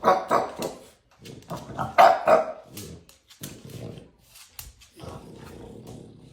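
A dog barking and growling in two loud bursts in the first half, then quieter bursts of grumbling.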